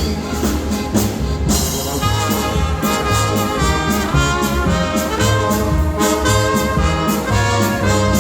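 Live Czech-style polka band playing an instrumental strain after the sung verse. About two seconds in, brass takes up the melody over a steady bass beat.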